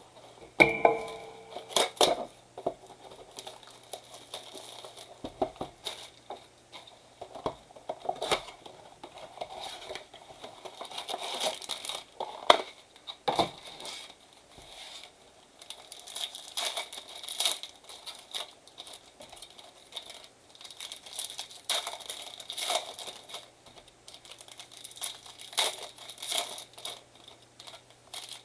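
Packaging of a trading-card blaster box being ripped open by hand: plastic wrap and card-pack wrappers crinkling and tearing in irregular crackles and rips, the loudest about a second in and around the middle.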